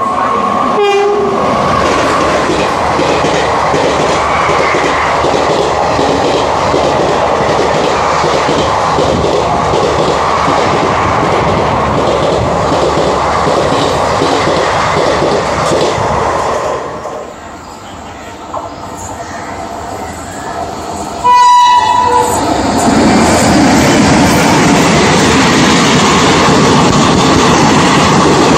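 Indian Railways ICF passenger coaches running past at speed, their wheels rattling and clacking over the rail joints. The noise fades at about 17 s. A second ICF train then passes close by, with a short train-horn blast as it comes in, followed by loud, steady clatter.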